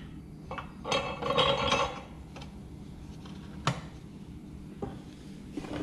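Metal tools clinking and tapping against a wheel during a tire change: a cluster of ringing clinks about a second in, then a few single sharp taps.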